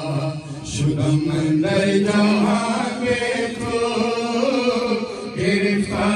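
Male voices chanting a Farsi noha, a Muharram lament, as one long-held, slowly wavering melody. A few sharp slaps cut through it, about a second in and again near the end: the crowd striking their chests together in matam.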